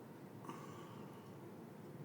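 Faint room tone with a steady low hum, and one brief faint click about half a second in.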